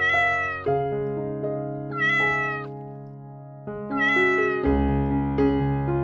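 A domestic cat meowing three times, about two seconds apart, each meow short and rising then falling in pitch, over background piano music.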